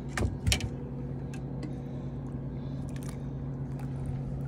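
Boat engine idling with a steady low hum, with a couple of sharp clicks about half a second in.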